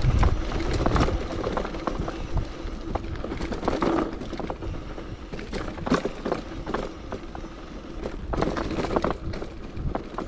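Bicycle rattling and clattering over a rough surface, an uneven run of clicks and knocks, with wind rumbling on the microphone at the start.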